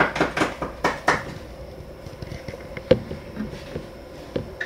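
A quick run of light knocks and clicks in the first second, then scattered quieter clatter and one sharp knock about three seconds in, like hard objects being handled.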